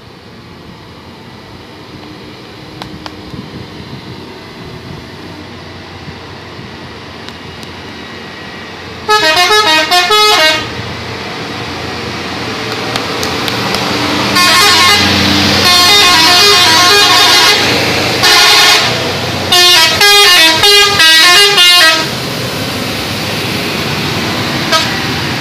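Bus telolet horn, a multi-tone musical air horn, playing quick trilling note runs: a short burst about nine seconds in, then a long loud blast and a string of short melodic blasts a few seconds later, over steady vehicle noise that builds as the bus draws near.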